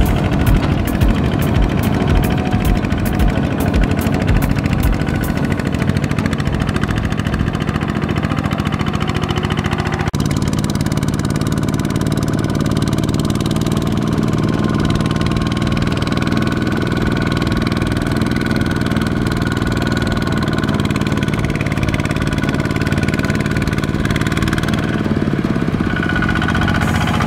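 Kubota ZT155 walking tractor's single-cylinder diesel engine running steadily under load. The engine note changes abruptly about ten seconds in.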